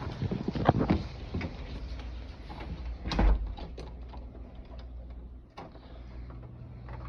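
Rain hiss with scattered clicks and knocks from the phone being handled, and a heavier thump about three seconds in, after which the rain sounds fainter.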